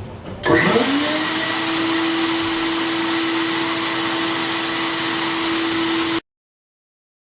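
Media blast cabinet starting up: a loud, steady air hiss with a whine that rises briefly and then holds one steady pitch. It cuts off suddenly about six seconds in.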